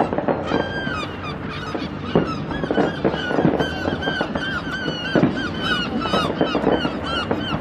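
Fireworks display going off: scattered bangs and crackles mixed with many short, high squealing whistles overlapping one another.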